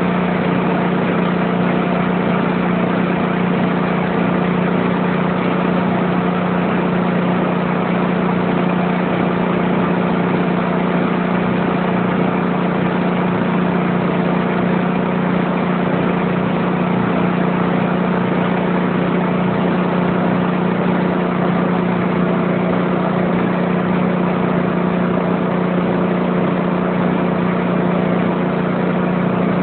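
Engine running at a constant speed, a steady drone that holds one pitch without rising or falling.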